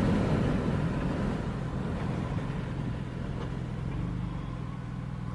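Car driving along: steady engine and road rumble heard from inside the cabin.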